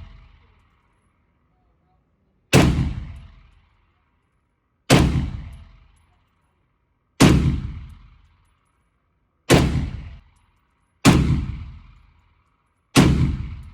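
Six single gunshots fired slowly and deliberately, about two seconds apart, each followed by a short echoing tail, at an indoor shooting range.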